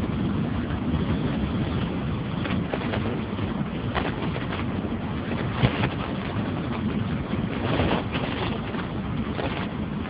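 Steady running noise of a moving vehicle heard from on board, with wind buffeting the microphone. A few brief knocks or rattles stand out, the sharpest a little past halfway.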